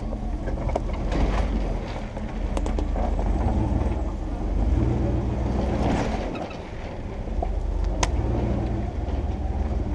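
Jeep Wrangler TJ engine running steadily at low speed while crawling over a rocky trail, with scattered sharp knocks and clunks from the vehicle bouncing over rocks.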